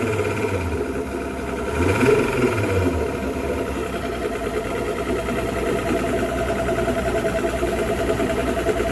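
Mercury 250 Pro XS Optimax direct-injection two-stroke outboard idling, revving up briefly and back down about two seconds in, then running steadily. It runs without the clunking its torn fuel and air regulators had caused, now cured by a new fuel rail.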